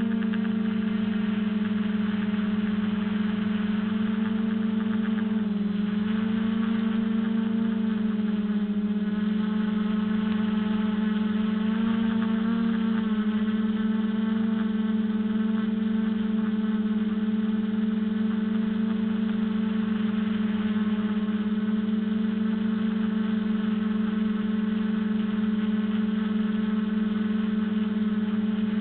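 Quadcopter's electric motors and propellers buzzing with a steady high hum, heard from the camera mounted on the quad. The pitch dips briefly twice.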